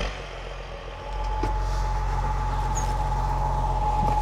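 Ford TW-35 tractor's six-cylinder diesel engine running steadily, with a steady high whine over it from about a second in.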